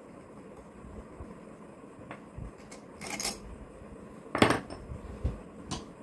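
Metal clinks and a short rattle as the long through-bolts are unscrewed from a cooler fan motor's casing and a freed bolt is set down on the floor. A few separate clinks, the loudest about four and a half seconds in.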